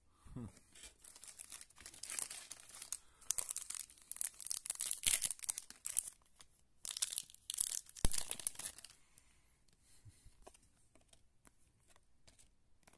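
A trading-card pack wrapper being torn open and crinkled by hand, in irregular crackling spurts for about the first nine seconds, then only faint scattered clicks as the cards are handled.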